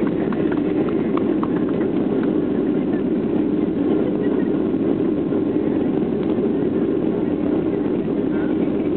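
Boeing 737 cabin noise during the landing rollout: a steady roar from the engines and the rolling airliner, with a few faint rhythmic clicks from the wheels in the first second or so.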